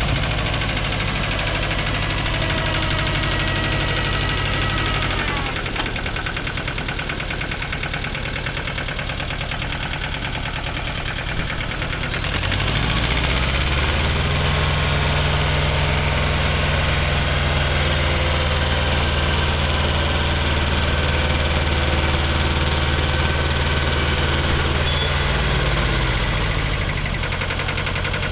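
Satoh Mitsubishi Bull compact tractor's engine running, driving a King Kutter II PTO rotary tiller through soil. The engine note drops about five seconds in, climbs back up around twelve seconds in, and drops again near the end.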